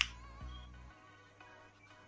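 Music playing quietly through the repaired Sonicgear Morro 3 speaker, fed from a phone, with a low bass beat in the first second. A sharp click comes right at the start.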